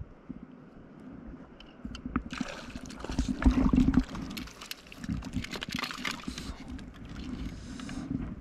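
Water splashing and sloshing around a stand-up paddleboard, in two spells of a second or more each, over a few low knocks against the board.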